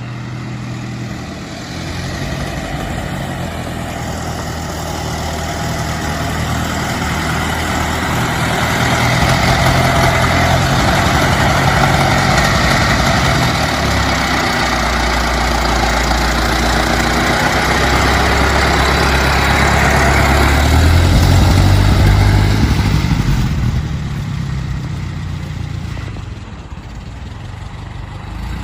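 Ford Model T four-cylinder engine running, growing louder over the first third and staying loud until about three quarters of the way through. It then drops back to a quieter, steady running sound.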